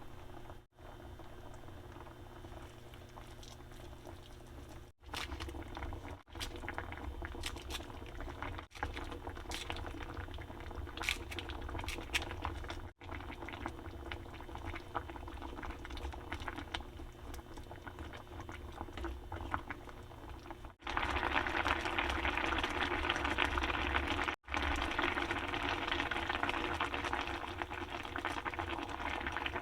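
Spicy tofu duruchigi, tofu in a chili-and-gochujang broth, boiling with a steady bubbling and crackle, broken by a few sudden short drop-outs. About two-thirds of the way through the bubbling turns louder and more vigorous.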